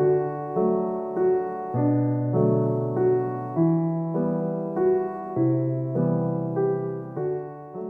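Gentle solo piano music, notes struck in a steady, slow rhythm with sustained chords underneath, fading away near the end.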